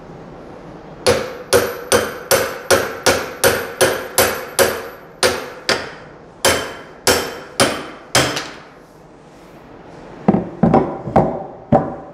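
Hammer striking a steel chisel wedged beside an office-chair caster's stem to knock the broken caster out of the plastic base: a run of about sixteen ringing metal-on-metal blows at two to three a second, a pause of about two seconds, then about six quicker blows near the end.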